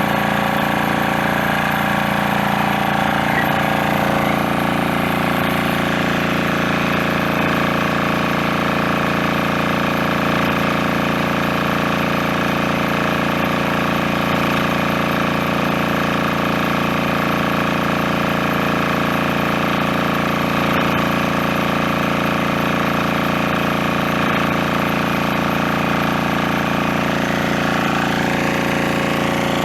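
Portable engine-driven water pump (motobomba) running steadily, a loud continuous engine drone that does not change.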